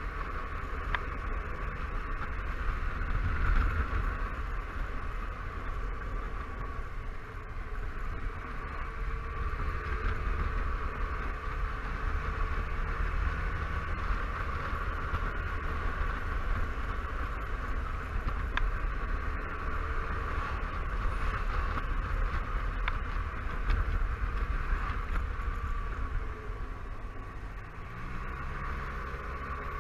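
Wind rumbling on the microphone of a Honda Silverwing 600 maxi-scooter riding at road speed, with the scooter's parallel-twin engine note running underneath; the engine note shifts near the end.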